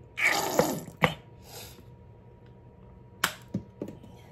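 Plastic ketchup squeeze bottle squeezed into a saucepan, squirting out with a noisy splutter for under a second, followed by a sharp click. A little past three seconds in, a sharp knock and two lighter ones as the bottle is set down on the counter.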